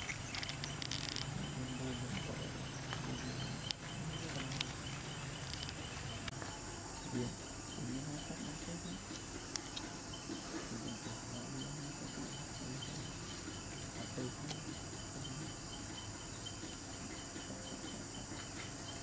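Insects chirping steadily: a continuous high-pitched buzz with a fast, evenly repeating chirp beneath it, and a few faint clicks and rustles.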